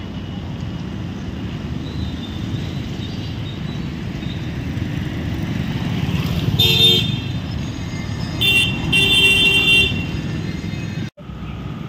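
Road traffic rumbling steadily, with a vehicle horn honking once a little past halfway and then twice more in quick succession shortly after.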